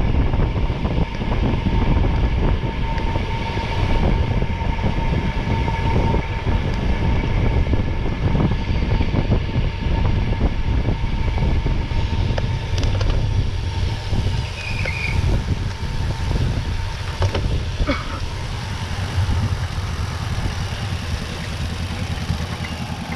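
Steady low rumble of a vehicle under way, with a thin, steady whine above it.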